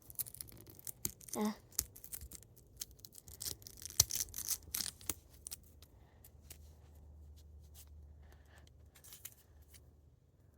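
Plastic packaging being handled and torn open: irregular crinkles, rustles and sharp little clicks, busiest in the first half.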